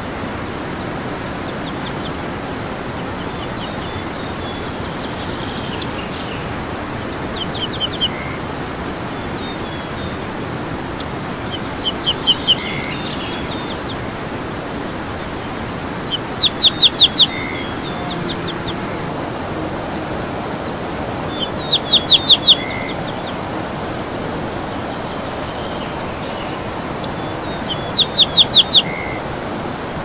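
Mountain river rushing steadily, with a songbird singing a short, rapid trilled phrase five times, every four to six seconds, each phrase louder than the water.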